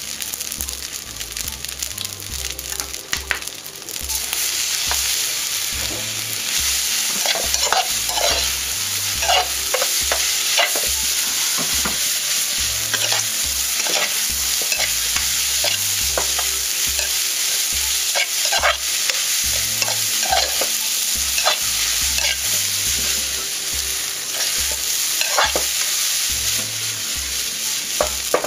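Rice stir-fried with minced pork, egg and holy basil sizzling in a steel pan, stirred and scraped with a spatula and tossed, giving a steady sizzle with frequent short scrapes. The sizzle grows louder about four seconds in.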